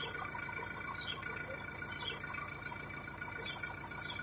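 Sonalika Tiger series tractor's diesel engine idling, a steady, even running.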